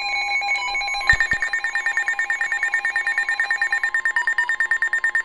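Electronic emergency alert tones: a steady high alert tone, taken over about a second in by a rapid, evenly pulsing electronic beeping, with a short thump where the beeping starts.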